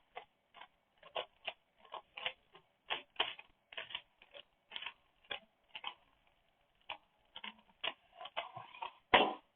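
Rubik's Cube turned quickly by hand: an irregular run of plastic clicks and clacks, several a second, with a louder knock near the end.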